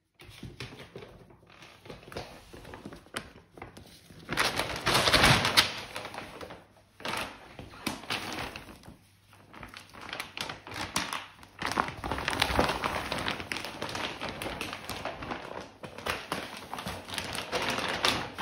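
A plastic shopping bag rustling and crinkling as a cat moves around inside it, with irregular taps and scrapes. The loudest rustling comes about four to six seconds in.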